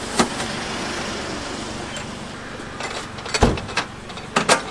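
Metal clanks and knocks as a food truck's stainless steel panels and fittings are handled while it is set up: a sharp click at the start, a heavy knock a little past the middle, then two quick clacks near the end, over steady street noise.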